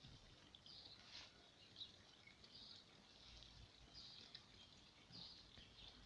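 Near silence: faint outdoor garden ambience with distant small birds chirping now and then.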